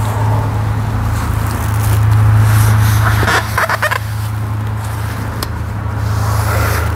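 A paper towel rubs and rustles against the metal timing cover as the crank seal bore is wiped, with a rougher scratchy stretch about halfway through. Under it runs a steady low hum.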